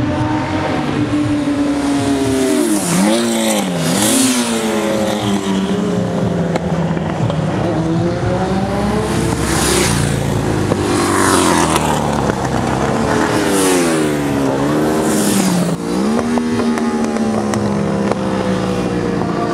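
Classic racing motorcycles running past on a street circuit, several engines at once, their pitch dipping sharply and climbing again a few times as the bikes slow and accelerate.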